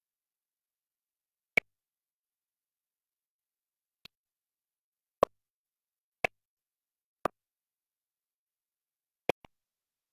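About seven short, sharp clicks at irregular intervals over dead silence, two of them close together near the end.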